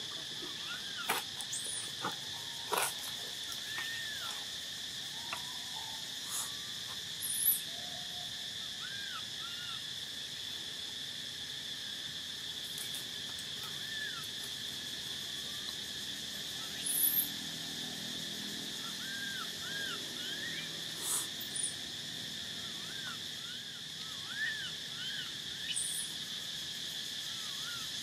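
Steady forest insect chorus, a continuous high drone, with scattered short chirps and a few brief, sharp high squeaks over it.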